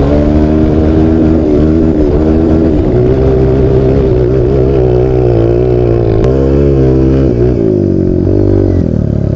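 Single-cylinder four-stroke trail motorcycle engine running hard through sand, its note rising and falling with the throttle and dropping off near the end.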